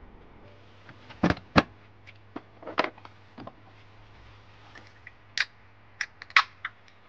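A run of sharp clicks and knocks from things being handled at an open truck door, the loudest about a second and a half in. Near the end, a drink can is cracked open.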